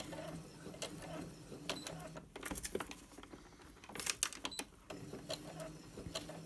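Brother F420 sewing machine stitching slowly in short stop-start runs: a low motor hum that comes and goes, with clicks from the needle mechanism.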